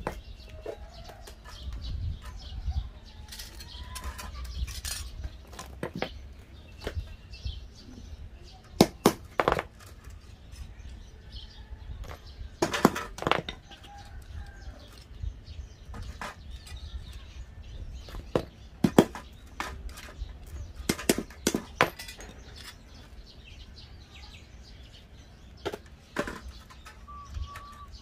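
Scattered sharp clicks and taps of thin sheet-metal pieces being handled and fitted onto an old gas stove's metal frame, some coming in quick pairs and clusters. Faint bird calls sound in the background.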